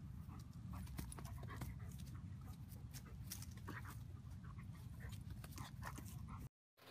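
A German Shepherd panting faintly over a low steady rumble. The sound cuts off briefly near the end.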